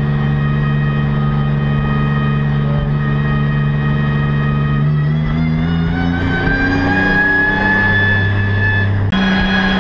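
Nissan GT-R Nismo GT3 race car engine heard from inside the cockpit, running at a steady low speed, then from about five seconds in a whine rising in pitch as the car picks up speed. Near the end the sound breaks off suddenly to a different steady engine note.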